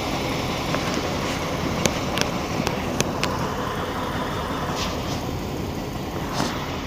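Motorhome engine running steadily, with a few sharp clicks about two to three seconds in. It is running again after a new starter solenoid was fitted.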